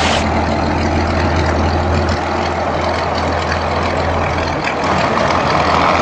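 Old harvest machinery running steadily: a low engine hum under a constant mechanical noise, the higher part of the noise shifting slightly about five seconds in.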